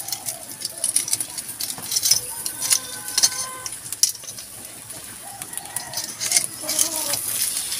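Whole fish grilling over charcoal, the coals and fish crackling and sizzling in a scatter of sharp ticks. Short bird calls come through in the background twice.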